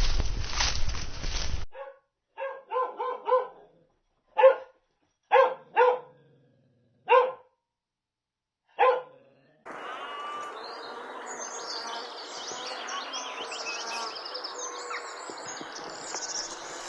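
A dog barking: a quick run of four barks, then single barks every second or so. The barks are followed by a steady background hum with high chirping over it.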